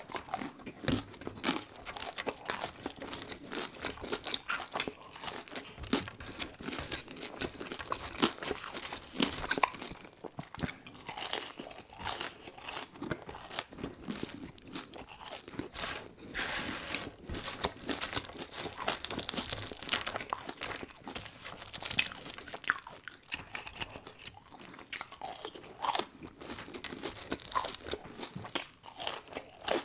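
Close-miked crunching and chewing of fried chicken fingers and french fries, a dense run of irregular crackly bites and chews.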